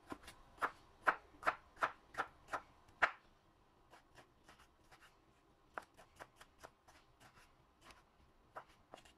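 Chef's knife chopping tomato on a wooden cutting board, each cut ending in a sharp tap of the blade on the board, about two or three a second. The cuts are louder for the first three seconds, then softer and more spaced out.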